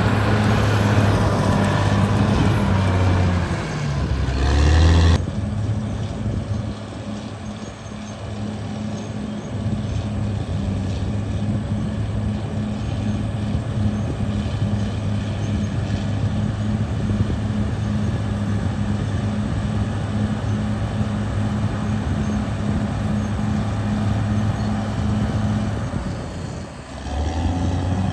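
Caterpillar D6R XL bulldozer's diesel engine running steadily under work. Its note shifts about four seconds in and dips briefly near the end before picking up again.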